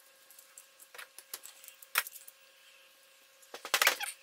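Small metal parts of a TBI throttle body clicking and clinking as they are handled on a workbench: scattered light clicks, one sharper click about halfway, then a louder jangling clatter near the end.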